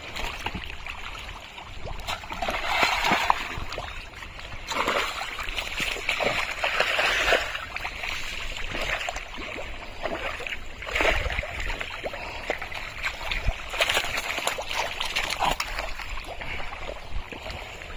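Hands and body working through thick, watery pond mud: irregular splashing and squelching in uneven surges.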